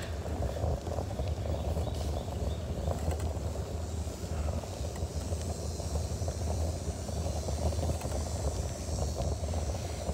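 Wind buffeting a phone's microphone while moving along, a steady low rumble with a faint hiss above it.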